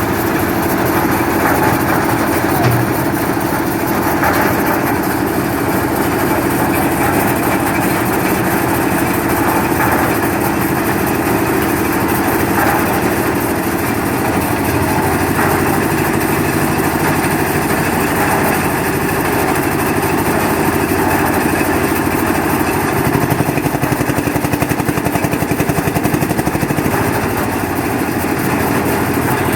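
Air-cooled diesel engine of a concrete mixer machine running steadily at a constant speed.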